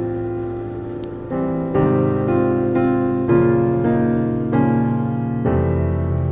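Background music: a piano or electric piano playing sustained chords and notes.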